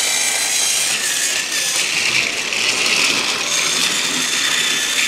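Battery-operated TrackMaster toy engine running on plastic track: a steady whirring from its small motor and gears, with clattering wheels.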